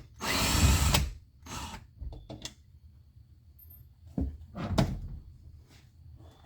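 A loud rushing burst just under a second long near the start, then scattered knocks and clicks of tools and parts being handled while a door speaker is taken back off.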